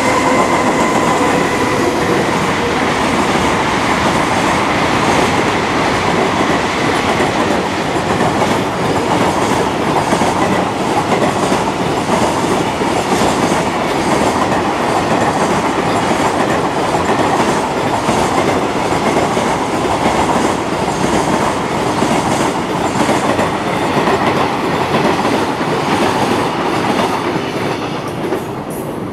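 Electric freight locomotive and a long container train running past on the main line. A steady whine at first gives way to the rumble and clatter of the wagon wheels over the rail joints, which dies away near the end as the last wagons pass.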